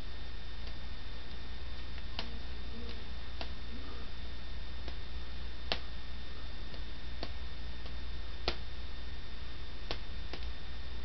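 Light, irregular clicks about once a second from a foam-and-cardboard puppet mouth being worked open and shut by hand, over a steady hum and hiss.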